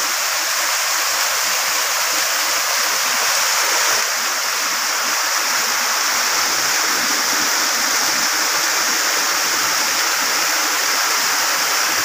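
Waterfall's falling water rushing steadily, a continuous hiss with no let-up.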